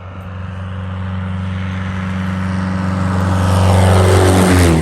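Small propeller plane's engine passing close, growing steadily louder and then dropping in pitch as it goes by near the end.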